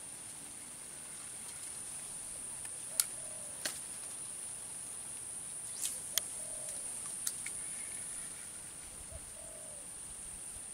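Steady high-pitched drone of insects. A bird gives a short, low, falling call three times, about three seconds apart, and there are a few sharp clicks in the middle of the stretch.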